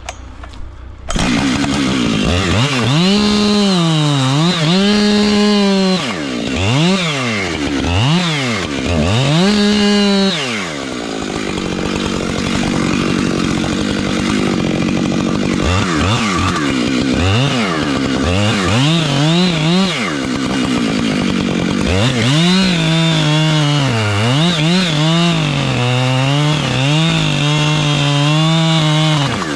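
Husqvarna 592XP two-stroke chainsaw starting about a second in and revved up and down over and over. A steadier stretch in the middle and a long run held at high revs near the end sound like it is under load in the cut.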